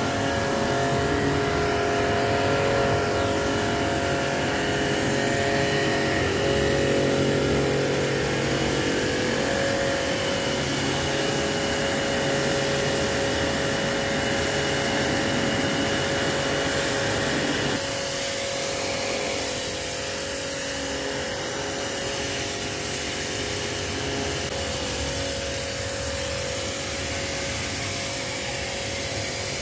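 Pressure washer running steadily, its pump motor humming under the hiss of a high-pressure water jet spraying wet concrete; the hum drops a little about two-thirds of the way through.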